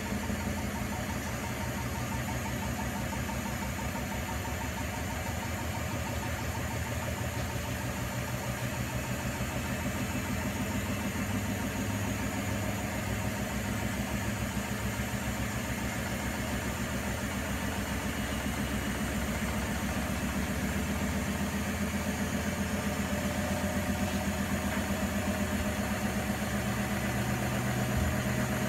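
Primus P6 commercial washer-extractor spinning its drum at speed: a steady motor hum with a fast, even rhythm from the rotating drum. A higher whine rises slightly and the sound grows a little louder in the last few seconds.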